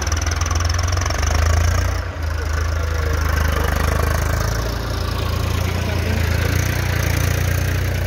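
Eicher 333 tractor's diesel engine running steadily as the tractor pulls a loaded earth trolley past close by, with a brief dip about two seconds in.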